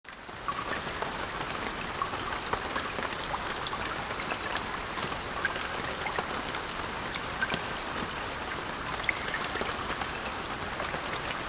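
Steady rain, with many individual drops ticking and dripping off a corrugated metal wall. It fades in over the first half second.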